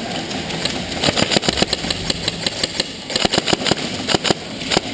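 A quick, irregular series of sharp clicks and knocks, several a second, starting about a second in over a faint steady hum.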